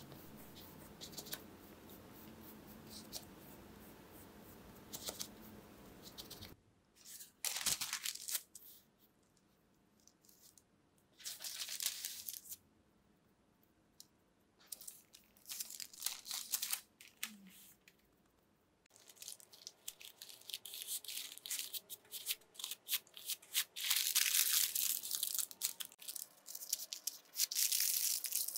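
Soft taps and brushing of hands rolling a log of butter-cookie dough, then parchment paper crinkling and rustling in repeated bursts as it is wrapped around the dough, loudest near the end as the paper's ends are twisted shut.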